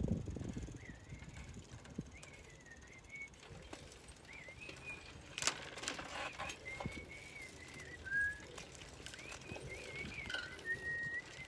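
Faint high whistling, a wavering tune that keeps near one pitch with a few short held notes, over scattered light clicks and rattles.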